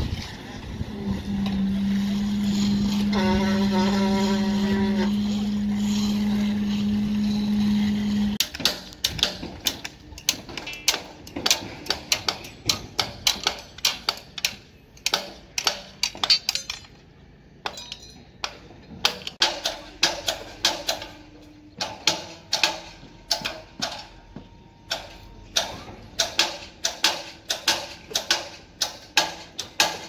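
A steady machine drone for the first eight seconds, then a hammer striking steel formwork again and again, about two blows a second with short pauses, some blows ringing briefly.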